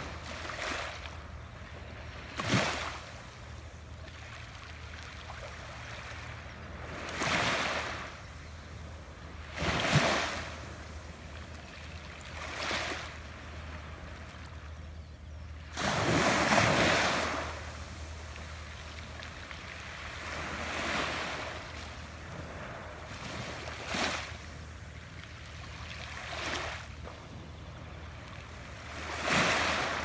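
Small sea waves breaking and washing up a pebbly shore, one wash of surf every few seconds, the longest about sixteen seconds in, over a steady low hum.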